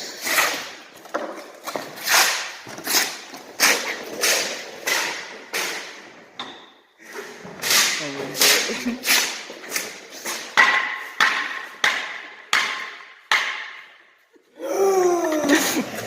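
A rapid series of sharp knocks or thumps, about two a second, each ringing briefly. Near the end a loud call wavers up and down in pitch.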